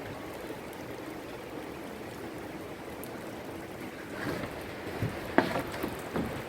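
Steady hiss of wet snowfall, with water running and dripping after days of rain. A few short, sharp sounds stand out over it in the last two seconds.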